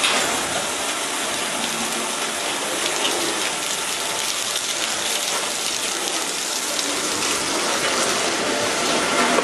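High-pressure water jets from an automatic coach washing plant spraying against the side of a railway passenger coach: a steady hiss and splash of spray.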